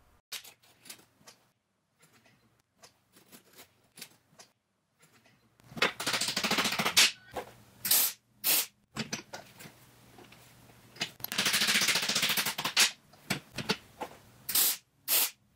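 MIG welder tack welding 16-gauge sheet-steel channel: the arc crackles in bursts, a long one about six seconds in and another about eleven seconds in, with several short tacks between and after. A few faint clicks come before the first weld.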